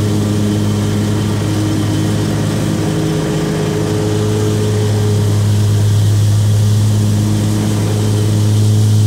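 Zero-turn riding mower's engine running steadily with the blades engaged while mowing, a steady low hum at a constant pitch that gets a little louder about halfway through.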